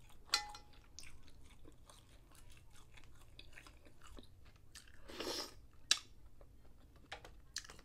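Close-up chewing and wet mouth sounds of someone eating buttered mussels, with scattered small clicks and two sharp clicks, about half a second in and about six seconds in, as mussel shells are handled.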